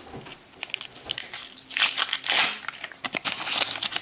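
A Panini sticker packet being torn open by hand and its wrapper crinkled as the stickers are pulled out: a quick run of rips and rustles, loudest a little over two seconds in.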